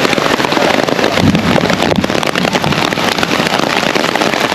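Heavy rain falling close to the microphone, with wind noise: a loud, dense, crackling hiss.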